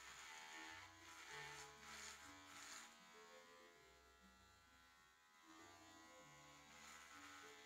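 Electric hair clippers buzzing faintly as they cut through a long, thick beard, with a rougher rasp in the first few seconds as the blades bite into the hair.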